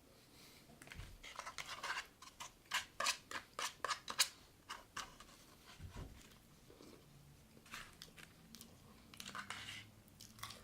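Close-up eating of crispy fried chicken: a quick run of crunchy, crackling bites and chewing for a few seconds, then a few more crunches near the end.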